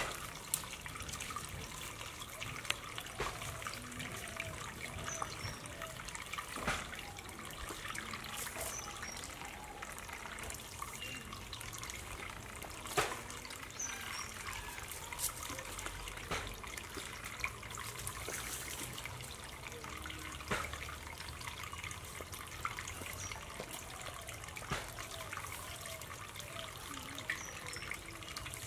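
Steady trickle of water, with scattered faint clicks throughout.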